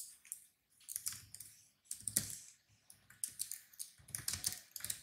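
Typing on a computer keyboard: sharp key clicks in short, irregular runs.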